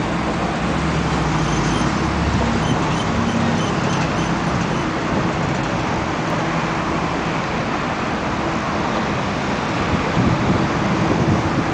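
Steady rushing outdoor noise with a low engine hum underneath, the hum strongest in the first couple of seconds and swelling again near the end.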